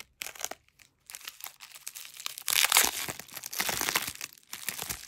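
Plastic bubble wrap crinkling as it is slit with a box-cutter blade and pulled apart by hand. It starts with a few scattered crackles, then turns into dense crinkling that is loudest in the middle.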